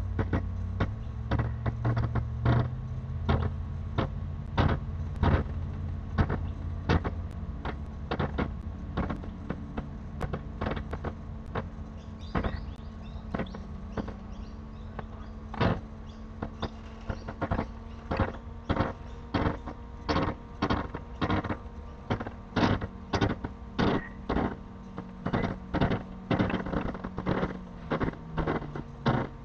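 A homemade sewer inspection camera being pushed along a sewer pipe: a series of sharp knocks and clicks about once a second, coming faster in the second half, over a steady electrical hum. A low rumble sounds in the first several seconds.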